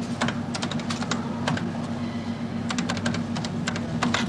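Typing on a computer terminal keyboard: keys clacking in quick, irregular runs, over a steady low background hum.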